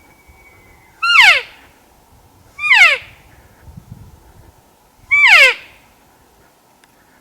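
Three short, loud cow-elk mews, each a nasal call sliding steeply down in pitch, spaced about one to two seconds apart.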